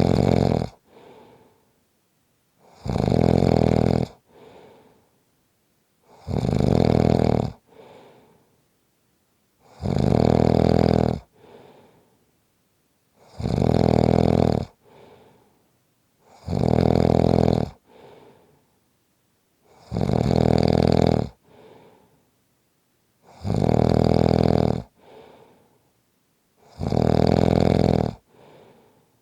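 A person snoring steadily in deep sleep: a loud snore about every three and a half seconds, each followed by a short, much softer sound.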